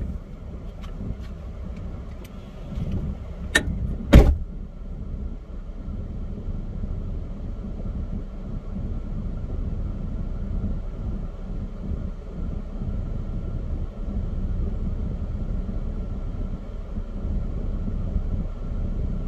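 Chevrolet Trailblazer running with a steady low rumble. Two sharp knocks come about three and a half and four seconds in; the second is the loudest.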